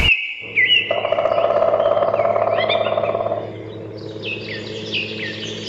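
Birds chirping in quick, repeated short calls that sweep up and down, over a steady low hum. A noisy mid-pitched rushing layer underneath stops about three and a half seconds in, leaving the chirps denser and the hum steady.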